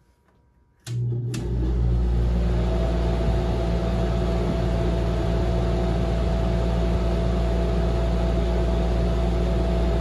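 1982 Airtemp 18,500 BTU window air conditioner switched on: two clicks about a second in, then the unit starts up and runs with a steady low hum and a rush of air, a steady whine joining in a second or so later.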